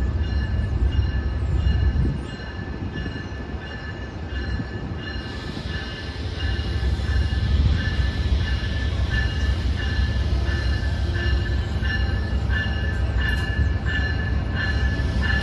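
Amtrak ACS-64 electric locomotive pulling a train slowly into the station. A low rumble grows louder from about five seconds in, over a steady high-pitched whine.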